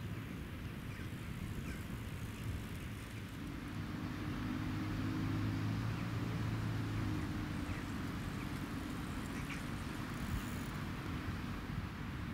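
Road traffic: a vehicle's low engine hum swells from about four seconds in and fades after about seven, over a steady traffic noise bed.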